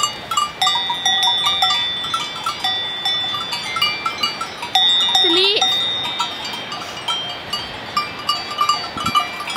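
Goat bells on the collars of a grazing herd clanking irregularly, the ringing tones of several bells at different pitches overlapping.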